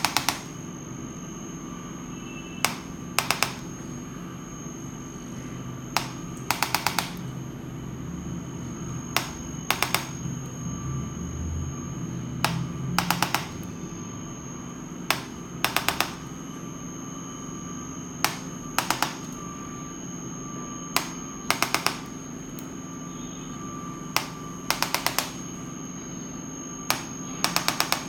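Chiropractic spinal adjustment gun firing: a single sharp click, then about half a second later a quick run of about four clicks, the pair repeating about every three seconds over a steady background hum.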